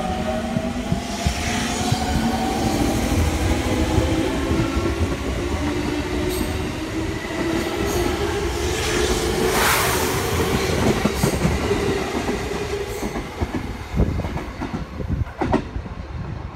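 JR 205 series electric commuter train pulling away from a station, its motor-car whine rising steadily in pitch as it gathers speed over a rumbling of wheels on rail. Near the end a few sharp clacks come as the last cars cross rail joints, and the sound then fades.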